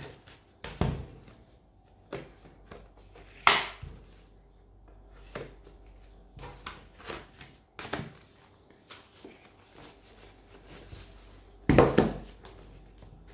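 Handling of plastic cases and packaging: scattered knocks, clicks and rustles as items are packed away, with a sharp knock about three and a half seconds in and the loudest cluster of knocks near the end.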